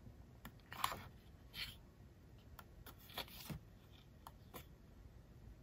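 Pages of a glossy album photo book being turned by hand: a few faint paper swishes and light taps.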